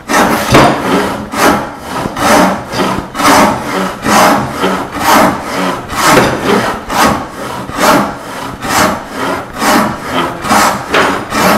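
Shop-made Roubo-style frame saw resawing a small block of walnut by hand: a steady rasping rhythm of about one stroke a second, the blade cutting on the push. The strokes are short and use only about half the blade.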